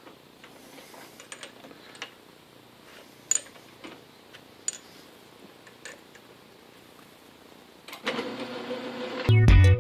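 Scattered light metallic clicks and taps of parts and tools being handled, then about eight seconds in a lathe starts running with a steady hum. Near the end a loud, low pulsing thump comes in over it.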